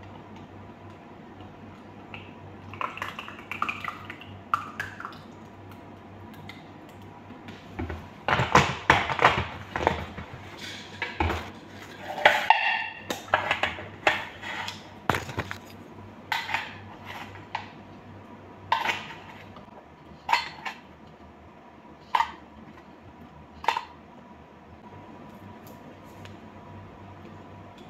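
Kitchen clatter of a metal can and plastic cups being handled: clinks and knocks of metal and plastic. It starts after several quiet seconds, comes in a busy run for several seconds, then thins out to single clicks every second or two.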